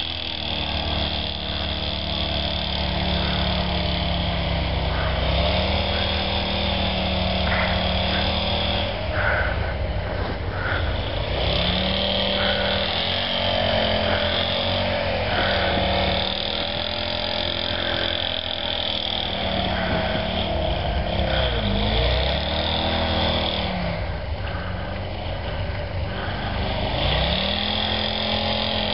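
Willys truck engine running hard in deep snow, its pitch rising and falling over and over as the throttle is worked.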